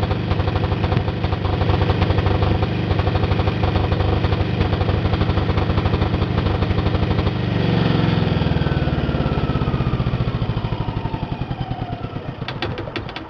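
Single-cylinder diesel generator running with a steady, rapid pulsing beat. About two-thirds of the way through it starts to wind down: the level sags and a whine falls in pitch as it slows. A few sharp clicks come near the end.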